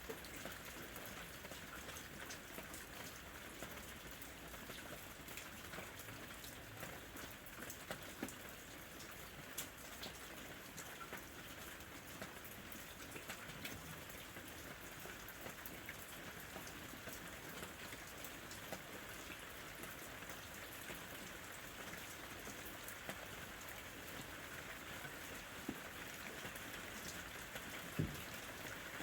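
Steady rain falling: an even hiss dotted with many small drop ticks, with one louder tap about a second before the end.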